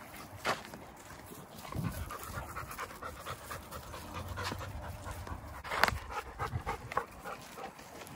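Dogs panting hard while moving around, with a sharp crack about six seconds in.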